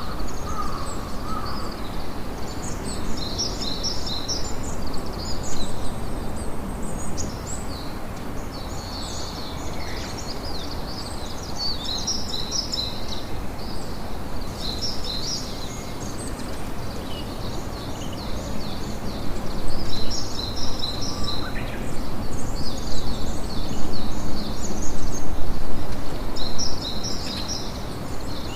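A campfire crackling and hissing steadily, with the crackles sharpest in the last third. Small birds chirp in quick high twitters throughout.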